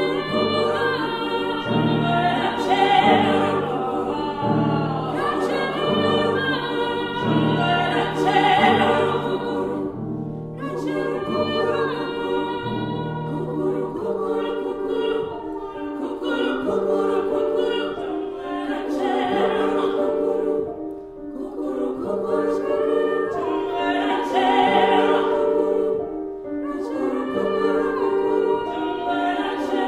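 Choir singing slow, sustained phrases in several parts; the low voices are strong at first and fall away about halfway through, leaving the higher voices.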